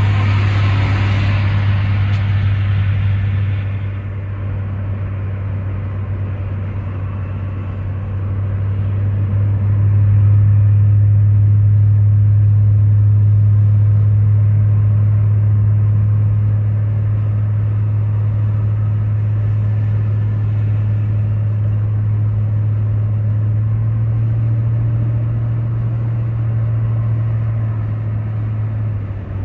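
A car's engine and road noise heard from inside the cabin while cruising, a steady low drone. A rush of higher noise fades away over the first few seconds, and the drone grows louder about ten seconds in.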